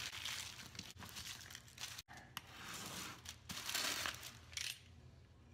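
Plastic sheeting and deli paper crinkling and rustling as they are handled, in irregular spurts that stop near the end.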